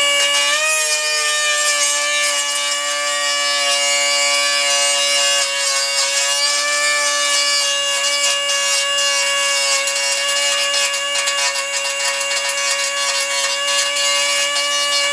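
Pneumatic die grinder running at a steady high whine, its bit grinding into a sheet-metal PC case panel with a rough, hissy grinding noise over the whine.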